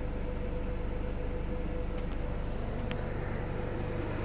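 Mercedes-Benz Sprinter 316 van's petrol engine idling steadily, a low even running sound with a steady hum above it.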